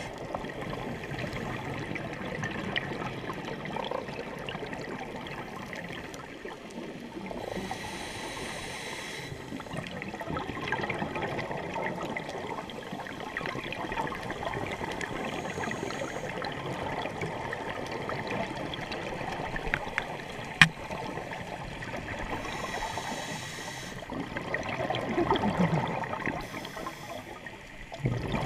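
Underwater recording on a scuba dive: divers' regulator exhaust bubbles rushing and gurgling in several bursts over a steady crackling hiss, with one sharp click about twenty seconds in.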